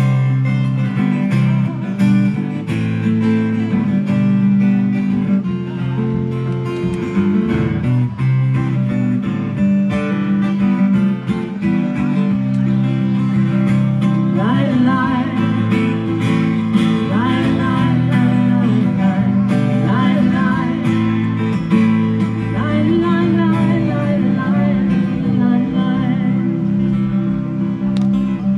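Acoustic guitars strumming and picking a song in a live acoustic performance. About halfway through, a wavering melody line joins above the chords.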